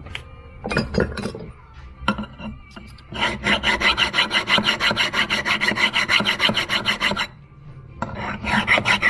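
Metal base of a Holley 94 carburetor being abraded flat with quick back-and-forth strokes, about six a second, after a few handling knocks. The strokes stop briefly near the end, then resume.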